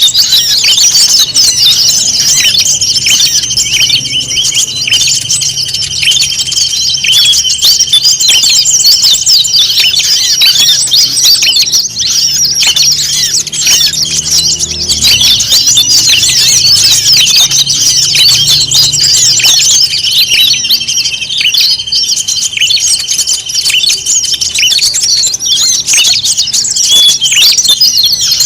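A dense chorus of many small songbirds chirping, squeaking and calling over one another at once, from a 'noisy birds' (burung ribut) lure mix played to attract wild birds. A steady high-pitched tone runs beneath for long stretches, breaking off about halfway through.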